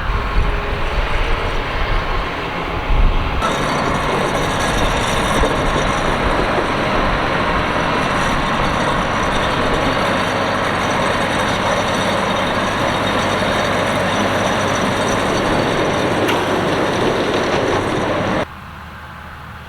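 Farm machinery working a carrot field: tractor engines running under load with a steady rattling clatter of harvester machinery. The sound changes suddenly about three seconds in and drops to a quieter engine sound near the end.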